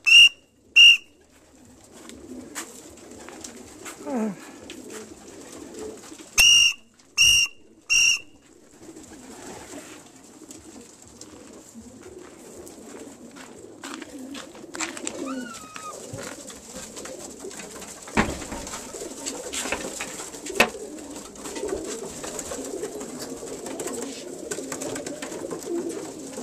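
Homing pigeons in a loft cooing and squabbling, with scattered knocks. Short, loud, steady-pitched whistle blasts call the birds in to feed: two right at the start and three more about six to eight seconds in.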